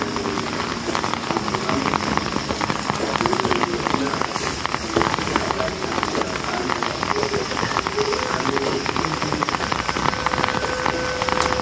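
Heavy rain falling steadily on a concrete yard and the surrounding trees.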